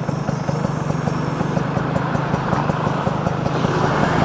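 Two-stroke motorcycle engine running steadily as the bike is ridden, a constant low engine hum under a hiss of road noise.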